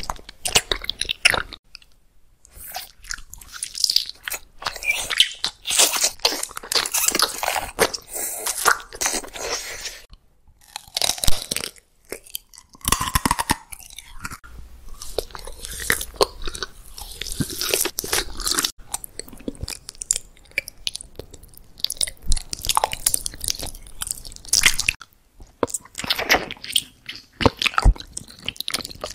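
Close-miked biting and chewing of gummy jelly candy: dense clusters of crackly, wet clicks that come and go, with a few short pauses between bites.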